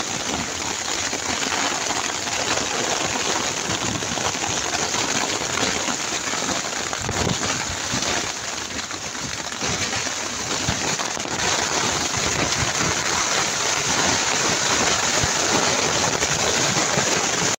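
Heavy downpour drumming on a plastic tarp canopy stretched over an inflatable PVC boat, a loud, steady rush of rain.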